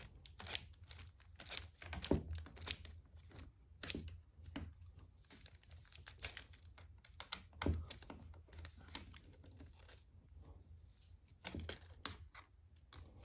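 Irregular light clicks, scrapes and a few soft knocks of plastic tool parts being handled while screws are driven in by hand.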